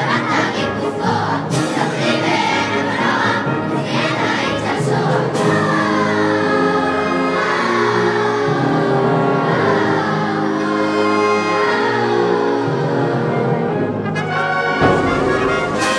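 A wind band and a children's choir performing together. Trumpets and trombones carry sustained notes and falling runs under the choir's singing, with a drum stroke near the end.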